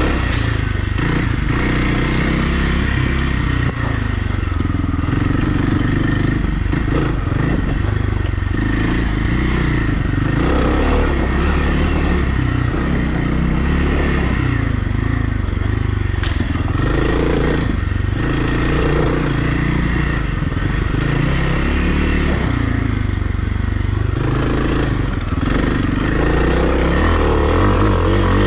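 Kawasaki KLX300R's single-cylinder four-stroke engine running hard on a trail, its pitch rising and falling as the throttle opens and closes, with a few sharp knocks along the way.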